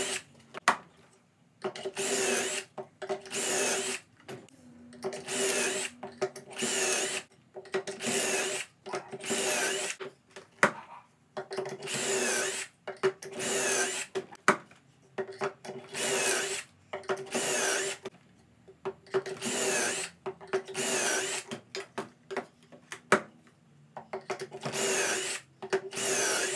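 Yellow DeWalt cordless drill with a pocket-hole bit boring into pine 1x4 boards through a Kreg K4 pocket-hole jig. It runs in many short bursts of about half a second to a second, with brief pauses between, as each hole is drilled.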